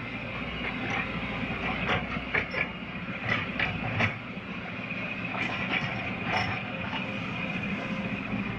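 Caterpillar excavator digging: its diesel engine runs steadily under a high, steady whine, with irregular sharp metal clanks and knocks, several a second at times.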